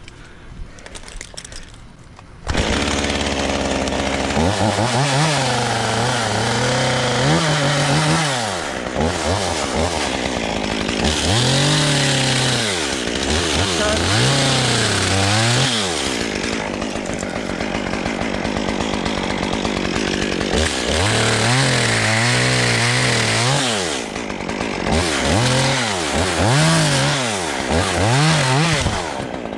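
Chainsaw starts up about two and a half seconds in, idles briefly, then is revved up and down again and again, with cuts into small branches.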